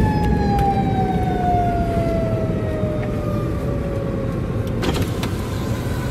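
Fire truck siren sounding one long tone that slowly falls in pitch as it winds down, over a low engine and traffic rumble. Two short bursts of noise about five seconds in.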